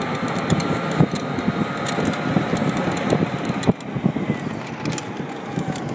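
Cabin noise of a Renault Twizy electric quadricycle on the move: steady road and wind noise with a faint whine from its electric motor that slowly shifts in pitch. The noise drops somewhat about three and a half seconds in.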